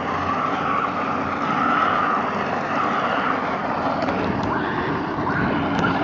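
Steady rushing roar of hard plastic wheels rolling fast on asphalt, mixed with wind on the microphone, with a few light knocks near the end.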